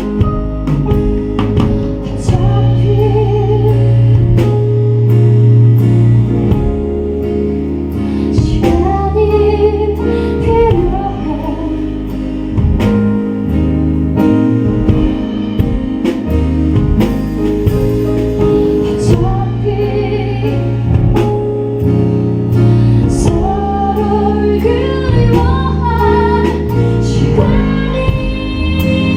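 Live band music: drums, guitar and other instruments playing steadily, with a singing melody line over them.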